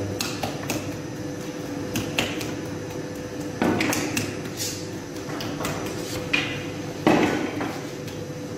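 Irregular knocks and clatters of bakers' wooden peels and long metal oven tools at a sangak bread oven, over a steady hum. The loudest knocks come about three and a half and seven seconds in.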